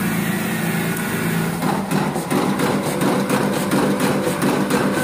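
Shark SBCC-24 card cutter running, its air-feed blower and drive motor giving a steady hum and hiss. About two seconds in, rapid clicking joins as sheets are fed through and cut into business cards.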